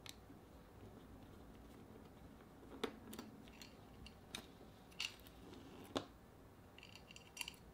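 Faint, scattered clicks and taps of a small screwdriver and tiny screws as two screws are taken out of a handheld radio's GPS module and set aside.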